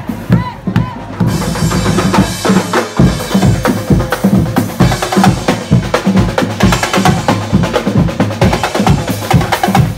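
Street drum band of snare drums, bass drums and a cymbal playing a fast, steady beat. The snares and cymbal come in strongly about a second in.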